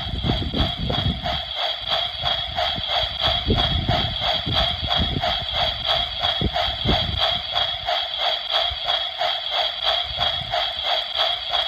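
Rhythmic train-like chugging at about four or five beats a second, steady and even throughout. A low rumble, like wind on the microphone, comes and goes under it for the first seven seconds or so.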